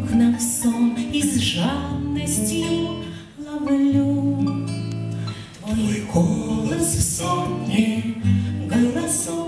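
Live song performance: a woman sings with her own acoustic guitar, joined by a man's and a second woman's voice in harmony, in long held notes.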